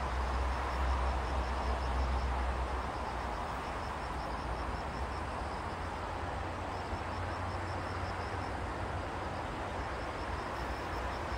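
Steady hiss of rain, with a low rumble that swells in the first few seconds and again later, and a faint, fast high ticking of about seven ticks a second.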